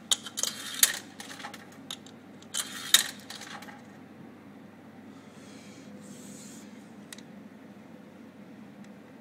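Coins fed into a vending machine's coin slot, clinking and rattling down through the coin mechanism in two bursts: one right at the start and another about three seconds in.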